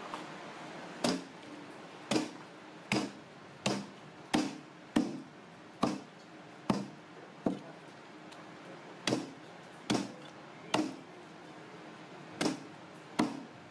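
A knife chopping monkfish on a thick round wooden chopping block. There are about fourteen sharp chops, roughly one every three-quarters of a second, with a short pause about halfway through.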